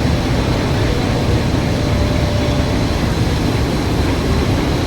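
Window de-metalizing and coating machine running: a steady mechanical rumble with a faint high whine held throughout.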